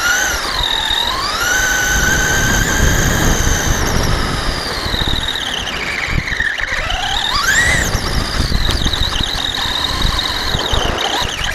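Electric Traxxas Stampede RC monster truck's motor and drivetrain whining, the pitch falling and rising with the throttle: it climbs and holds, slides down over a few seconds, then shoots up sharply to a peak around eight seconds in and drops again. A rough rumble of tyres over the ground runs underneath.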